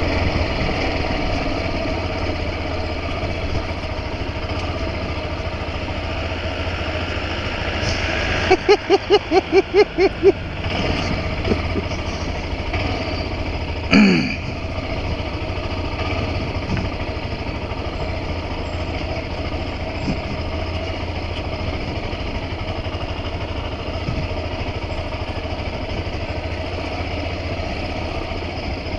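Motorcycle engine running steadily. About nine seconds in there is a quick string of about eight short tones, and a brief falling sound comes at fourteen seconds.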